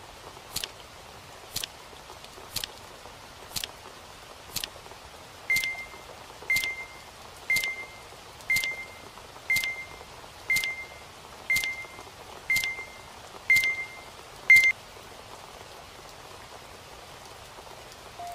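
Pomodoro countdown timer ticking once a second, with a short high beep on each tick over the last ten seconds of the break countdown. The final, loudest tick-beep marks the break ending, and the ticking then stops.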